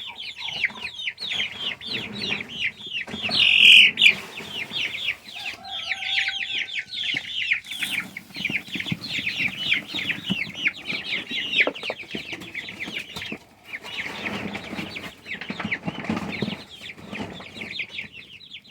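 A flock of young Cornish cross meat chickens peeping continuously in a dense chorus of short, high, falling calls, several a second, with one louder call about three and a half seconds in.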